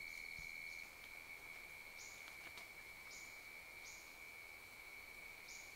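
Faint rainforest insect drone: one steady high-pitched whine, with short high chirps at the start and then about once a second.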